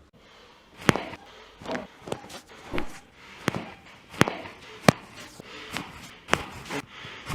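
A rhythmic series of sharp knocks during chiropractic treatment on a patient's body, about one every three-quarters of a second, with a faint hiss between them.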